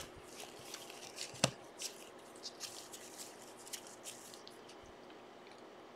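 Faint rustling and light clicks of trading cards being handled and slid against each other, with one sharper tap about a second and a half in; the handling fades out a little past the middle.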